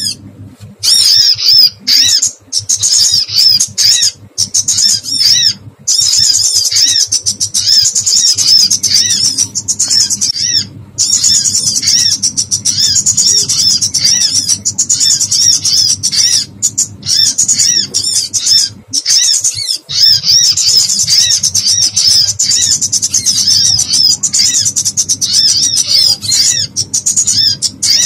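Small birds giving distress calls, as from a bird caught or pinched in a trap, in a dense, rapid stream of high, arching squawk-chirps with a few brief breaks.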